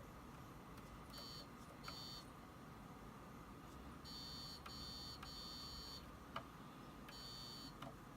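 Continuity tester beeping as the desoldered key switch is checked: about six separate high-pitched beeps, each half a second to a second long, each beep showing the switch closing. The switch reads fine off the board. Faint clicks fall between the beeps.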